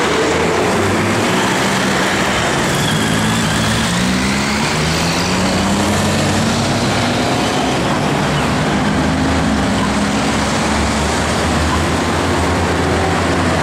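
Busy road traffic passing close by: cars, vans and heavy trucks, with a steady rush of tyre and engine noise and engine notes that rise and fall as vehicles pull away and slow down.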